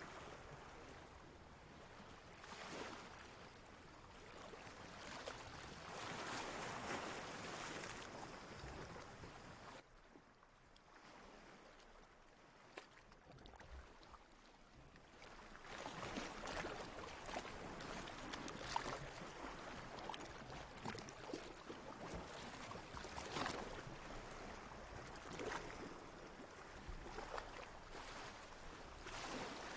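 Gentle water washing and splashing, like small waves, swelling and easing, quieter for a few seconds in the middle.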